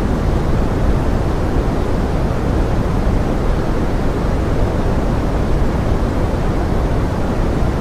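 Steady pink noise blended with forest rain: an even, unbroken rushing hiss, heaviest in the low end, with no single drops or changes standing out.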